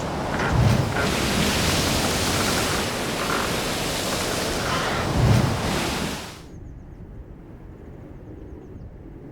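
Wind buffeting the microphone: a loud rushing noise with two low thumps, cutting off abruptly about six and a half seconds in. After that only a quiet low rumble remains, with faint bird chirps.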